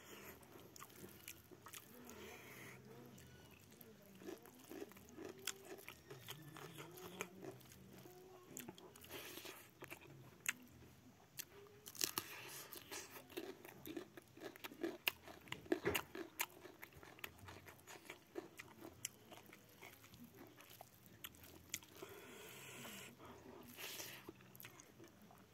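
A man eating rice and pork by hand: close, open-mouthed chewing with wet smacks and crunching, many sharp clicks throughout. Now and then comes the rustle of fingers mixing rice on a steel plate.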